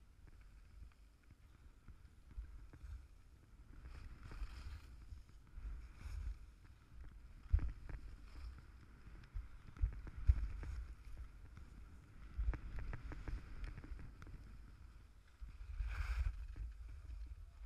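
Skis sliding and scraping over packed snow during a downhill run, with low rumbling wind and bumps on the camera microphone. A louder scrape comes near the end as the skis slow.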